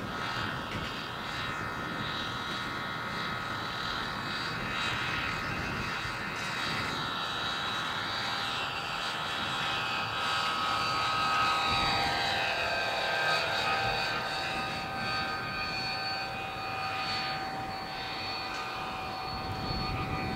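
Radio-controlled scale Huey model helicopter in flight: a steady high whine of its motor and rotor. The whine drops in pitch as it passes close, about halfway through.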